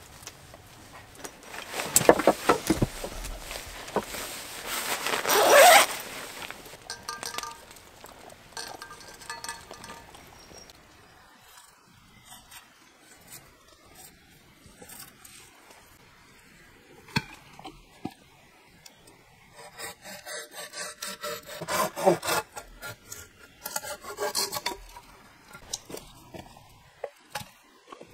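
Hand saw cutting wood in bouts of scraping strokes. The loudest bout comes in the first few seconds, and a run of quick, regular strokes comes later.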